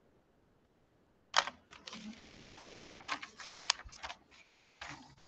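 A sheet of paper being handled and shifted, rustling and crackling. It starts about a second in with a sharp crackle, followed by a run of irregular crinkles and clicks.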